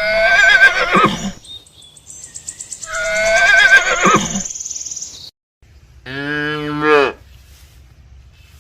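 Animal calls: two loud, high-pitched, wavering calls of about a second and a half each in the first half, then one lower, shorter call about six seconds in.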